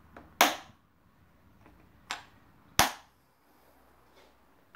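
Three sharp plastic snaps and knocks from the Husqvarna 395 XP chainsaw's top cover as hands press and fit it onto the power head: the first about half a second in, the others near two and three seconds, the last with a dull thud.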